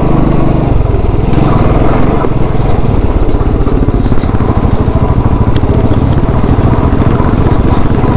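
Royal Enfield Classic motorcycle's single-cylinder engine running steadily under way, with a fast, even pulse.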